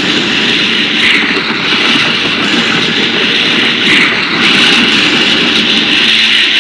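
Loud, steady jet-like rushing roar from a Showa-era kaiju film sound effect, swelling slightly twice.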